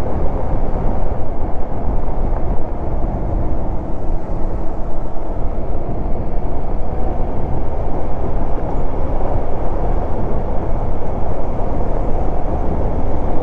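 Motorcycle ridden along a road at speed: a steady rush of engine, tyre and wind noise on a handlebar-mounted camera's microphone.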